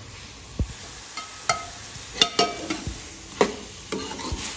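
Steel ladle stirring chopped coriander into spiced potatoes in a large aluminium pot, with about half a dozen sharp metallic clinks and a few dull knocks against the pot. A steady sizzle runs underneath.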